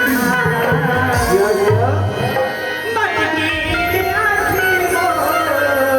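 Indian folk music with tabla-style hand drums under a gliding melodic line, with deep pitched drum strokes about a second in and again near two seconds in.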